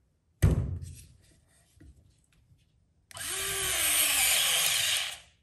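A knock, then the new Craftsman 4V cordless screwdriver's motor driving a wood screw into a 2x4 for about two seconds. Its pitch falls as the screw loads it, and then it stops suddenly: the tool has high speed but too little torque to seat the screw.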